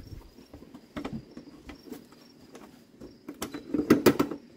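Plastic shroud of an old John Deere pressure washer being handled and fitted back onto its base: scattered light clicks and knocks of plastic, with a cluster of louder knocks near the end.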